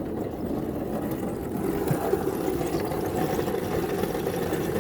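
Engine of a small ride-on railroad locomotive idling steadily.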